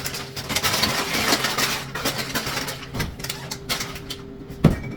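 Rustling and clatter from handling packaged food and containers while packing a lunch bag, with one sharp knock near the end, over a faint steady hum.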